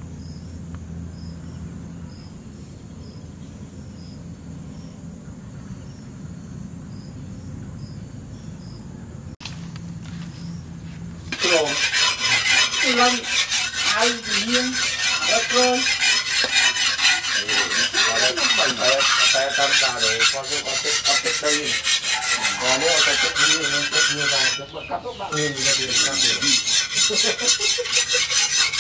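Hand file rasping along the edge of a heavy steel knife blade made from a tractor disc plough, in quick repeated scraping strokes that begin about a third of the way in and pause briefly near the end. Before that there is only faint outdoor background.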